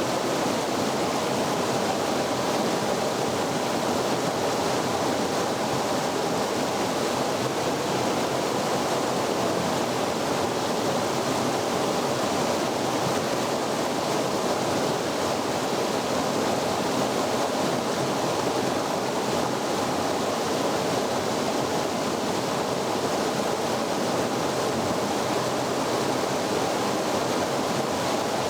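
Mountain torrent spilling over a small waterfall: a steady, even rush of water.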